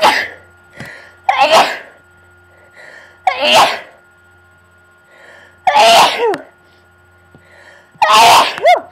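A person sneezing repeatedly in an allergy attack: a run of about five loud sneezes roughly two seconds apart, each preceded by a quick breath in.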